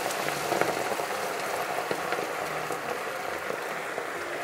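Boiled water hitting toasted bulgur in a hot pot, sizzling and bubbling with a dense crackle that fades a little.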